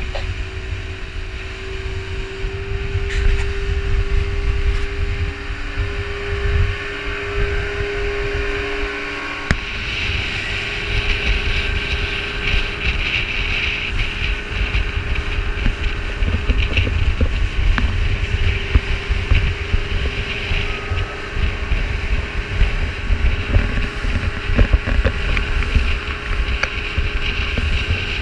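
Motorboat under way at sea: a steady engine hum under heavy wind buffeting on the microphone and the rush of water. About nine seconds in the sound changes suddenly, the engine hum fades and the hiss of wind and water takes over.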